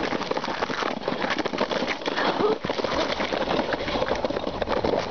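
Dense, irregular crunching and scraping on packed snow, steady throughout.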